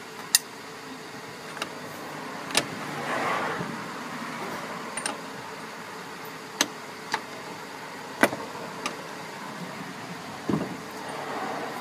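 A handful of sharp, irregular metal clicks and clinks from a socket and long breaker bar on a Honda Civic's rear hub axle nut as it is tightened onto a new wheel bearing. Under them is a steady background hum that swells briefly about three seconds in.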